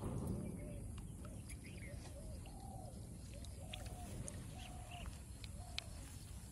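Birds calling: a run of short, low, repeated calls, about two a second, with a few higher chirps above them. A brief low rush at the very start.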